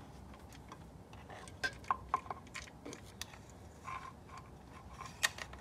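Light metallic clicks and clinks of a BMW N20 timing chain and the exhaust camshaft adjuster sprocket being handled and pulled off the camshaft, several quick clinks about two seconds in and a louder one near the end.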